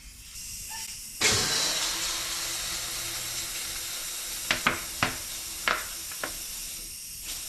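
Compressed air hissing steadily into a freshly sealed tubeless mountain-bike tire through its valve, starting about a second in. Several sharp clicks sound in the middle of the hiss.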